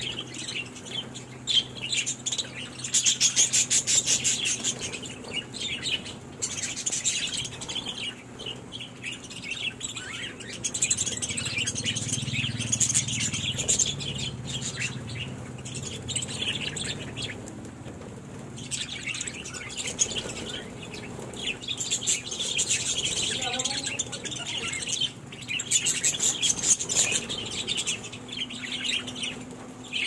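A flock of budgerigars chattering and chirping in a dense, continuous warble with short lulls, mixed with wing flutters as birds fly in and shift about.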